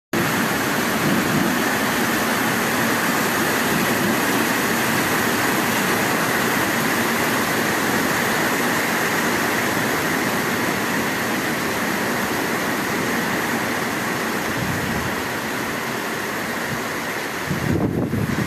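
Heavy rain falling steadily, an even loud hiss. Near the end the hiss thins and a lower, uneven rumble takes over.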